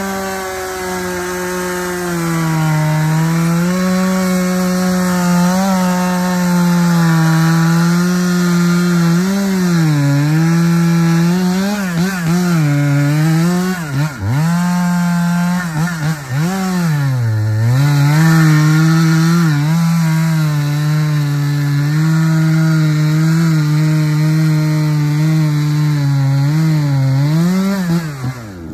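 An engine running hard under load, its pitch sagging and recovering again and again, with a deep dip about halfway through, then falling away sharply at the end.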